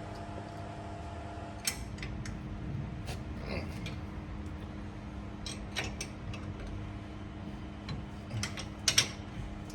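Light metallic clicks and taps, with a brief falling squeak, as brake pads and their retaining pin are worked into a disc-brake caliper. The loudest click comes near the end.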